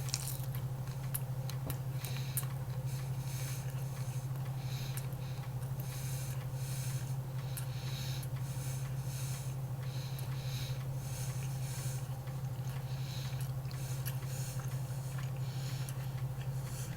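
A person chewing a very solid meat snack stick close to the microphone, with irregular small crunching and mouth noises throughout. A steady low hum runs underneath.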